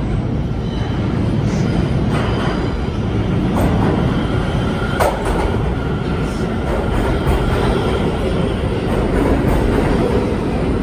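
New York City subway train running, a steady loud rumble with occasional sharp clicks, the sharpest about five seconds in, and faint thin squealing tones from the wheels.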